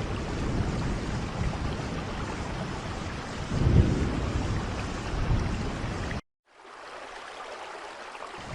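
Steady rain, with a low rumbling swell about halfway. A little after six seconds it cuts out abruptly for a moment and comes back quieter and thinner, with the low rumble gone.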